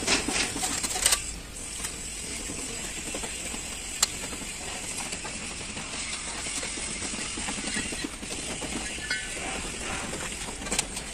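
Steel truck leaf-spring shackle parts clinking against each other and a metal basin as they are scrubbed by hand in dark oily liquid. A quick run of clinks comes in the first second, then a single sharp clink about four seconds in, over steady background noise.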